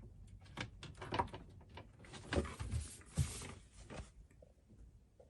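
Irregular light clicks and knocks of a water hose and push-in fittings being handled and fitted onto a filter in a cabinet, with a short stretch of rustling and scraping about two to three and a half seconds in.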